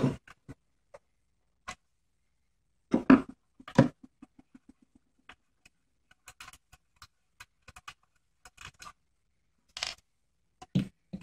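Sheet-metal casing of a CD/DVD drive being pressed and worked apart by hand: scattered clicks and knocks, two louder ones about three seconds in, followed by a quick run of small ticks, about eight a second.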